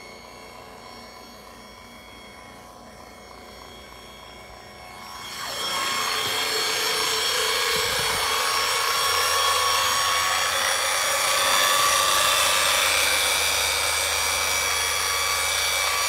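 AIPER Smart handheld rechargeable pool vacuum running, its motor giving a steady thin whine. About five seconds in, a loud rushing, splashing noise of churned water starts as the vacuum head works in shallow water near the surface on the pool step, and it carries on until near the end.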